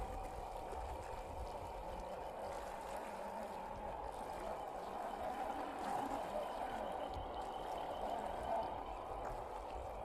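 Electric drive of a 1/10-scale RC Toyota Land Cruiser crawler running with a steady whine as its rubber tyres churn and splash through muddy water.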